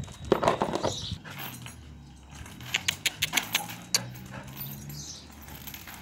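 A chained dog vocalising, with its metal chain clinking in a quick run of sharp clicks around the middle.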